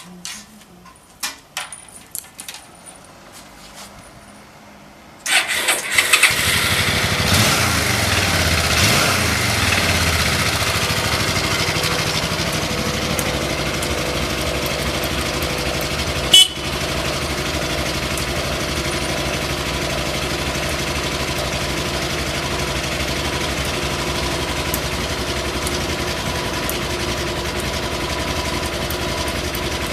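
A few light clicks, then about five seconds in the Suzuki Desperado 800's V-twin cranks on the electric starter and catches at once. It runs fast for a few seconds, with its pitch falling, then settles into a steady idle. One sharp click sounds over the idle about sixteen seconds in.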